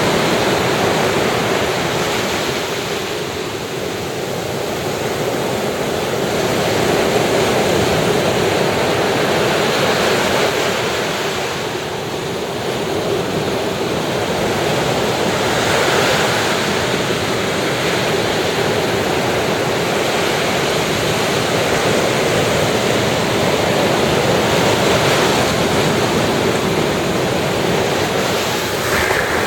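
Ocean surf breaking and washing on a sandy beach, a steady wash that swells and eases as the waves come in.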